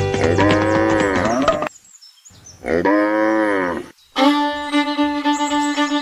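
Cow mooing twice, two long calls that each bend up and then down in pitch, with music under the first. Music with held notes comes in about four seconds in.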